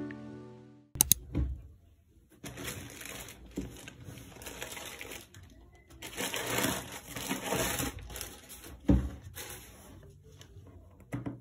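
A black plastic mailer bag rustles and crinkles while an aroma diffuser's cardboard box is pulled out of it, in uneven bursts of handling noise. The box is set down on the desk with a thump about nine seconds in.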